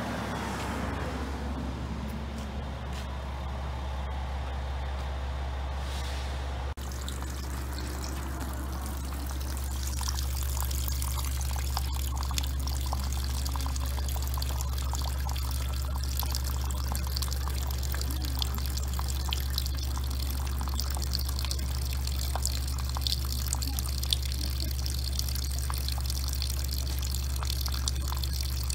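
Spring water running from a pipe into a plastic PET bottle and splashing onto pebbles, a steady trickling pour with small splashes. It begins about seven seconds in and gets a little louder a few seconds later.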